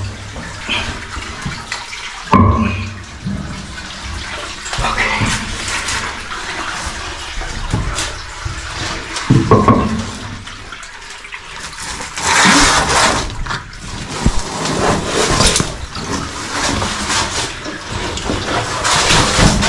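Water splashing and sloshing as a caver squeezes and crawls through a tight, water-filled cave passage, with scattered scrapes and knocks and a few louder surges of splashing.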